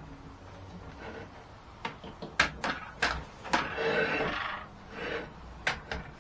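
Handling noises from a sliding compound miter saw being worked by hand: a series of sharp clicks and knocks, with a short scraping noise about four seconds in and a few more clicks near the end.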